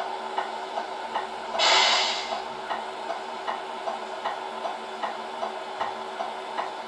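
Tipper hydraulics of a 1/14 RC MAN TGX 8x4 halfpipe tipper truck raising the bed: a steady mechanical hum with a light tick about two or three times a second. A brief hiss comes about a second and a half in.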